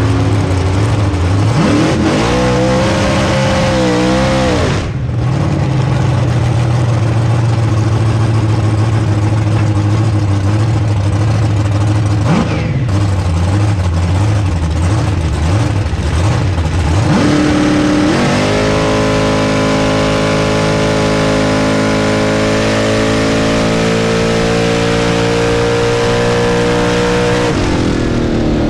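Supercharged engine of a Chevy 3100 drag pickup heard from inside the cab. It runs steadily and is revved up and down briefly early on, then launches sharply past the halfway point and pulls at full throttle for about nine seconds of drag-strip pass, its pitch climbing steadily. Near the end the throttle is lifted and the engine winds down.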